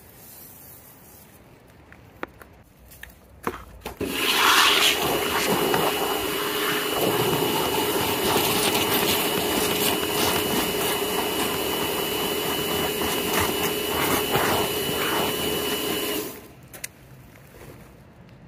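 A machine running steadily with a loud hiss and a constant hum. It starts suddenly about four seconds in after a few clicks, and cuts off abruptly near the end.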